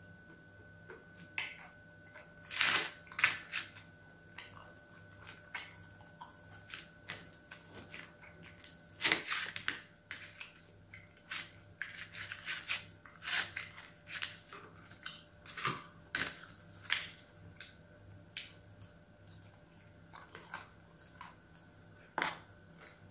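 Close-up eating sounds: a person chewing and biting into pizza, with irregular crunches and small clicks and taps from a spoon working over the pizza box. A faint steady hum runs underneath.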